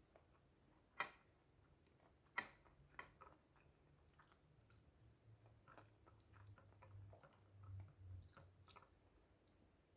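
A person chewing food quietly, close to the microphone, with a few faint mouth and utensil ticks and two sharper clicks, about a second and two and a half seconds in.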